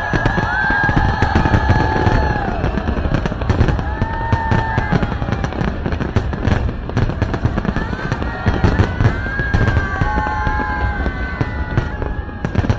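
Fireworks display going off: a rapid, continuous run of bangs and crackles, with music and drawn-out tones that hold and then fall in pitch over them.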